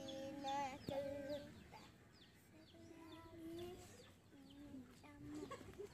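Chickens clucking faintly, with a run of quick, high downward-sliding chirps in the first half.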